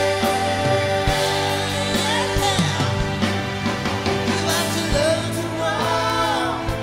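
Live band playing a song: a woman singing over electric bass, electric guitar, keyboard and drums.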